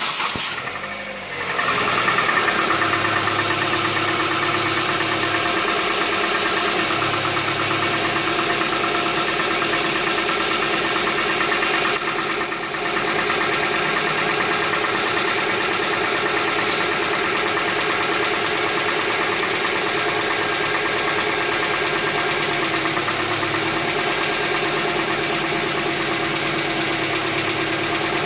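Hyundai Tucson 2.0 16-valve four-cylinder petrol engine idling just after a start, with a rapid ticking. This is the morning noise that fades once the engine has warmed up, which a mechanic puts down to the hydraulic tappets (lifters).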